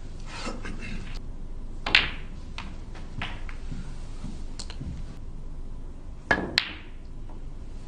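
Snooker balls clicking on the table, with the cue tip striking the cue ball: one sharp click about two seconds in, a few lighter clicks after it, and two more sharp clicks about a third of a second apart near the end.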